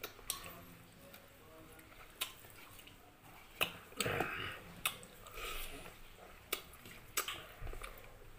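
Close-up eating sounds: a person chewing, broken by scattered small clicks and taps as food and dishes are handled, with a brief louder rustle about four seconds in.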